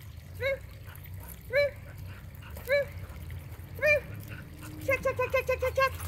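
Dog giving short high-pitched barks about once a second, then a quick run of about eight barks near the end.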